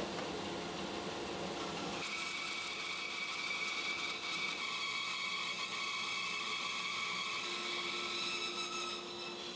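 Bandsaw resawing a walnut board on edge. The saw runs steadily, then from about two seconds in the blade cuts through the wood with a steady high whine and hiss, which eases near the end as the cut finishes.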